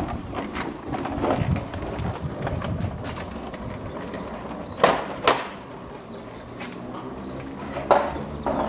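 Two-wheeled caster board (waveboard) rolling over tiled paving, with two sharp knocks about five seconds in and another near the end.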